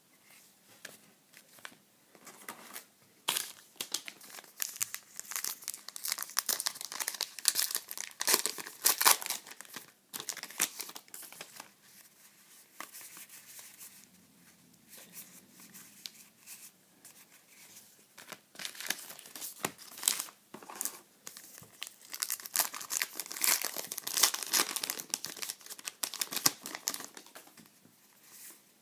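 Trading card pack wrappers being torn open and crinkled, in two long spells of crackling with quieter card handling between.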